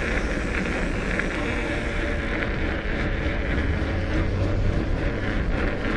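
Steady wind buffeting the microphone with the rumble of a fat bike rolling along, a few faint ticks and rattles over it.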